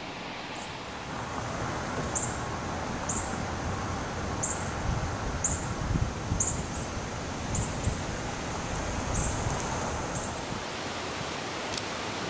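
Gusty hurricane wind blowing through trees and buffeting the microphone, with low rumbles as the gusts hit.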